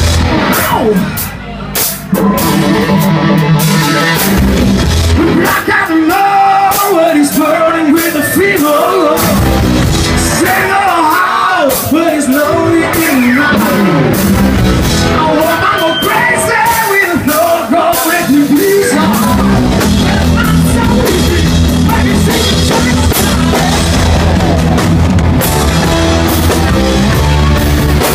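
Live rock band playing a power ballad: a wavering lead melody over sparse backing with little bass, then the full band with drums and bass guitar comes in about nineteen seconds in.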